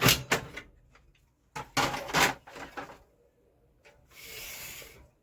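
Plastic housing of a Canon LBP 2900 laser printer being handled and opened up by hand: two sharp knocks, a quick cluster of clicks and knocks about two seconds in, then about a second of sliding, scraping plastic near the end.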